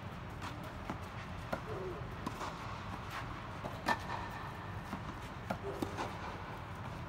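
Tennis rally with orange low-compression balls: racket strikes and ball bounces on a clay court heard as a series of sharp knocks, the loudest about four seconds in, over a steady low hum.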